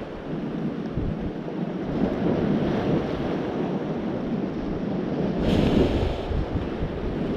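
Surf washing over a low rocky shoreline, with wind on the microphone. About five and a half seconds in, a sea blowhole in the rock shoots up a jet of seawater with a sudden rush of spray lasting under a second.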